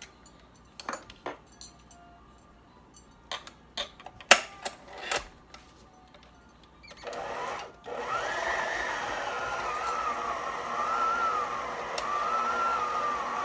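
Metal clicks and clanks as a stand mixer's bowl and tilt head are handled and set, then, about seven seconds in, the mixer's motor starts, cuts out for a moment and starts again, running on with a whine that rises and then wavers up and down as the beater works through the heavy ground-beef meatloaf mixture.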